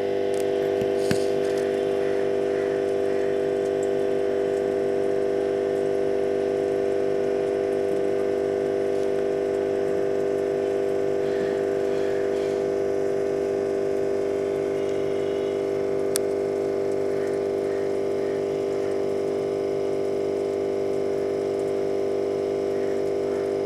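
Steady hum of aquarium pump equipment, several steady tones running at a constant level, with one faint tick about two-thirds of the way through.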